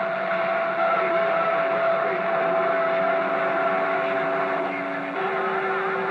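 CB radio receiver putting out loud hissing static from a weak long-distance skip signal, with steady heterodyne whistles over it; one whistle starts a couple of seconds in and another shifts pitch about five seconds in.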